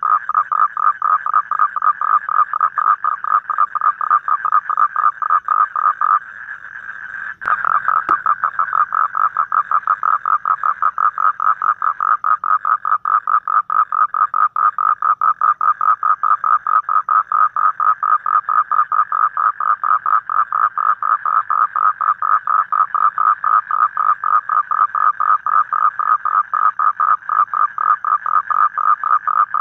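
Asian common toad calling: a long, rapid pulsed trill, pitched steady. It breaks off for about a second some six seconds in, then starts again after a click and runs on unbroken.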